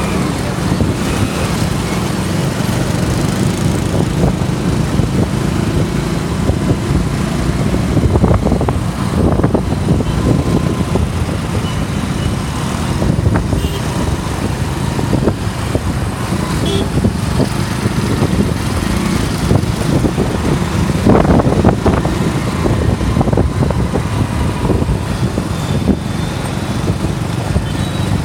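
Steady rumble of motor vehicle engines and road noise, swelling a little louder twice.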